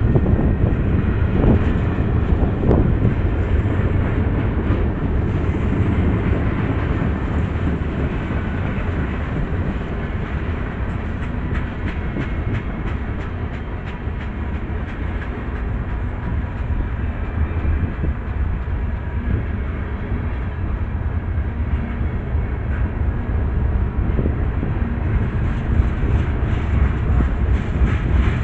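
Freight cars of a CSX train rolling past close by: a steady rumble of steel wheels on rail with rapid repeated clicking as the wheels cross rail joints. The sound is loudest at the start, eases slightly midway and builds again near the end.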